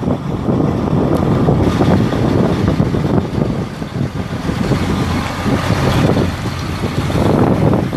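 Freightliner Business Class M2 service truck's Mercedes-Benz MBE 900 7.2 L inline-six diesel running as the truck drives slowly and turns.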